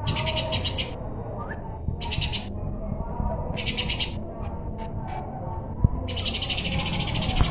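Songbird singing rapid, high trills in four bursts, the last one longer, over a steady low rumble.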